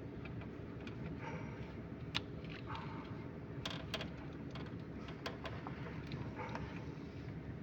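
Scattered metallic clicks and taps from hand work on an engine's timing chain and sprockets, over a steady low hum.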